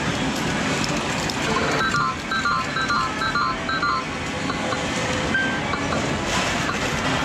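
Steady arcade din with a Sigma video-poker medal machine's electronic beeps. A quick run of short, repeated high tones sounds from about two to four seconds in as medals are credited and a hand is started, and a single beep follows about a second later.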